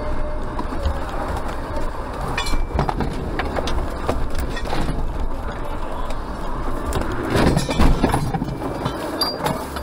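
Vehicle driving noise: a steady low road rumble, broken by several sharp knocks and clatters. The loudest of them come about seven to eight seconds in.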